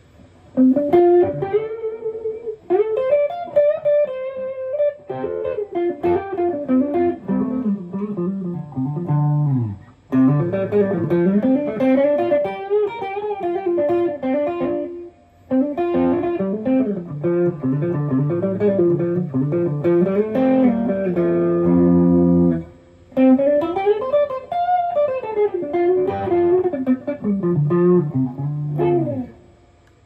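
Baker B1 electric guitar with humbucker pickups, played through an amp: single-note melodic lines and runs in phrases, with short pauses about ten, fifteen and twenty-three seconds in, and the playing stops just before the end.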